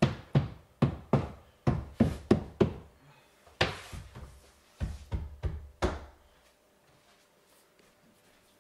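Hand knocking on a marble-effect splashback board to bed it firmly into the adhesive behind it. The knocks come at about three a second, then thin out to a few scattered ones and stop a little past halfway.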